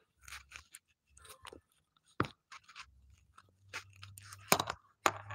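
Handling noise of a phone being moved about while recording: irregular short crackles and knocks, with a sharp click a little after two seconds and a louder knock near the end, over a low hum.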